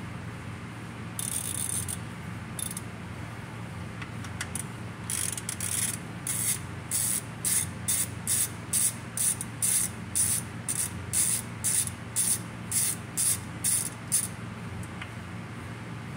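Ratchet wrench clicking in short runs, about two strokes a second for roughly nine seconds, as a bolt on an automatic transmission's valve body is worked.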